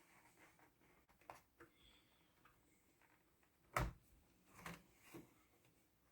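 Plastic clips of a Lenovo Legion Y530 laptop's bottom case snapping loose as the case is pried off: a few scattered clicks, the loudest about four seconds in, amid near silence.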